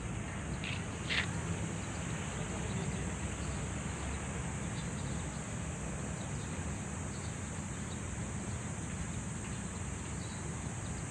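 Outdoor ambience: a steady high-pitched insect drone over a low rumble, with two short bird chirps about a second in.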